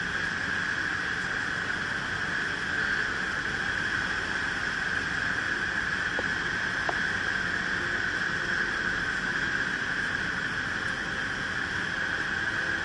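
Steady drone inside the cabin of a Cessna 152 in flight: its four-cylinder engine and propeller running, mixed with airflow over the cabin.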